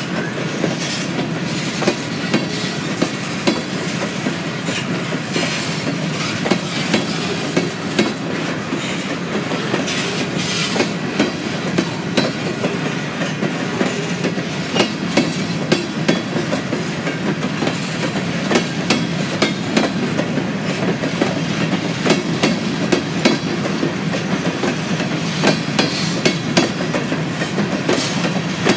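Freight train cars rolling past with a steady rumble and frequent sharp clicks as the wheels cross rail joints.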